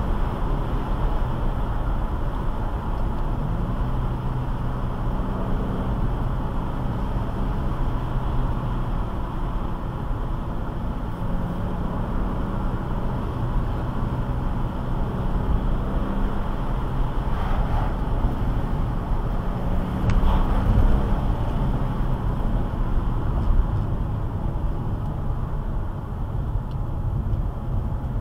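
Car driving at steady speed, heard from inside the cabin: a continuous low engine and tyre rumble whose engine note shifts in pitch now and then, swelling briefly a little over two-thirds of the way through.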